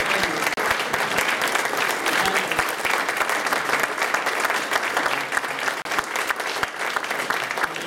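Audience applause: many hands clapping in a steady, dense patter.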